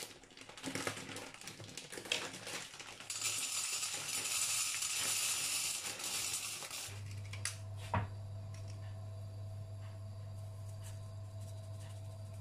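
A plastic pasta bag crinkling and being snipped open with scissors. Then dry penne pours into a stainless steel pot with a loud rattling hiss for about three seconds. After that comes a steady low hum, with a single knock about eight seconds in.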